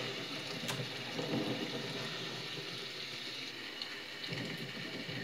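Storm rain in a film soundtrack, a steady downpour pattering on window panes, heard through a TV's speaker. One sharp crack comes about a second in.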